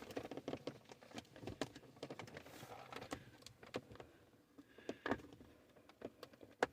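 Irregular light plastic clicks and taps as a car's centre-console trim panel is handled and pressed down into place.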